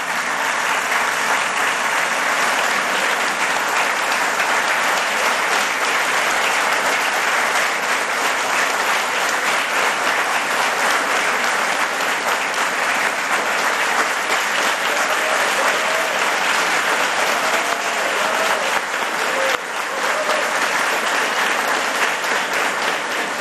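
Audience applauding, long and steady.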